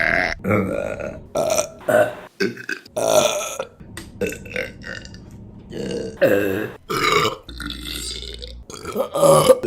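A woman burping repeatedly: a string of about eight short burps of varying length with brief pauses between them, the loudest near the end.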